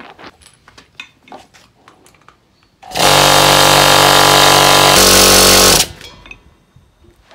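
A single-phase 220 V electric air compressor, direct-drive motor and piston pump, starts up about three seconds in on a test run after a leaking hose fitting at the pressure switch was fixed. It runs loud and steady for about three seconds, its tone shifting slightly near the end, then stops abruptly. A few light clicks and knocks come before it.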